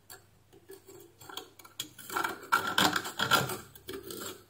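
Pointed pliers scraping and picking at a corroded, broken-off screw stub in a steam iron's body: irregular metal scratching and clicks, busiest from about two to three and a half seconds in.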